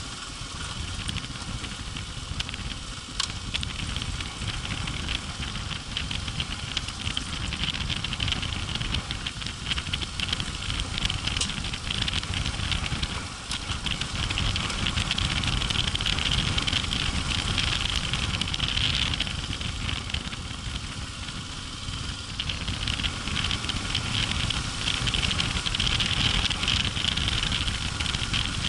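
Yamaha Ténéré 700's parallel-twin engine running at low speed on a gravel track, with many small clicks and rattles from the tyres over loose stones. It gets somewhat louder about halfway through.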